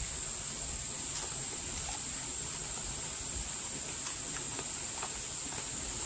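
A steady high-pitched drone of insects, a summer chorus of crickets or cicadas, with a few faint crunching clicks of chewing.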